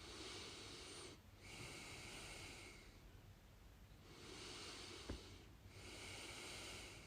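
Slow, deep breathing close to the microphone: two full breaths, each a drawn-out breath in and out. A soft tap comes about five seconds in.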